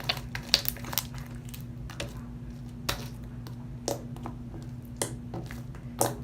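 Glue slime activated with Sta-Flo liquid starch being kneaded by hand: a string of irregular wet squishes and sticky little clicks, over a steady low hum.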